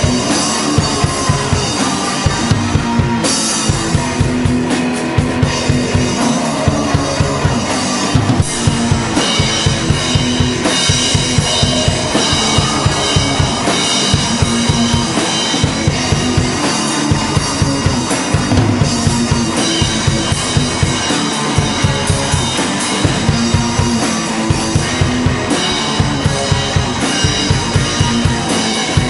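Live rock band playing: a drum kit keeps a steady beat, with kick drum and cymbals, under a guitar.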